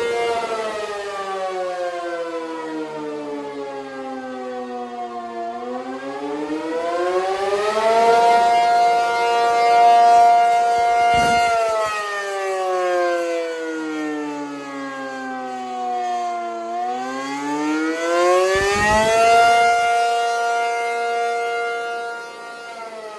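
ACA P-50 Penetrator outdoor warning siren sounding its wail. The pitch slides down, climbs and holds high for a few seconds, then slides down, climbs and holds again. The sound swells and fades as the siren's horn turns toward and away from the listener.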